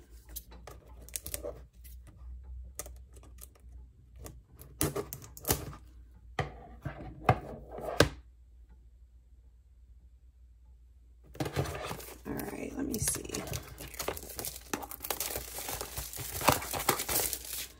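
Clear plastic shrink wrap being torn and crinkled off a cardboard box, a dense crackling run in the second half. Scattered short clicks and taps of handling come in the first half, with a few seconds of near silence in the middle.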